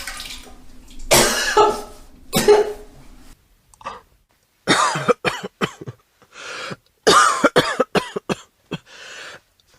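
A person retching and heaving: two heaves, a pause, then clusters of short cough-like gagging spasms, the last one fainter.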